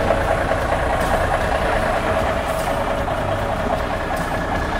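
1975 Kenworth truck's diesel engine idling steadily.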